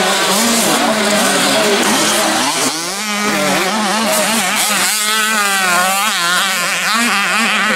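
Several mini motocross bikes racing, their engines revving hard and rising and falling in pitch over and over as the riders shift and work the throttle through the corners, over a steady low drone.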